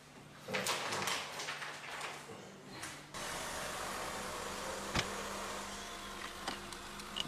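Scattered soft movement and handling noises, then a steady outdoor hiss. Over the hiss come a sharp click from a car door being handled about five seconds in, and a lighter click a second and a half later.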